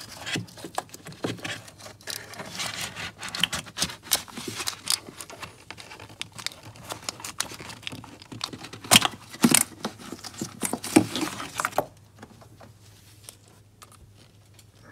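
Scattered clicks, taps and short scrapes of hands and hard plastic parts being worked in an engine bay as a throttle sensor is worked loose from its housing. About twelve seconds in the handling stops, leaving only a faint low hum.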